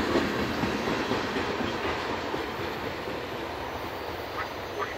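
Wheels of the last cars of a freight train, covered hoppers and tank cars, running over the rails. The sound fades steadily as the end of the train moves away.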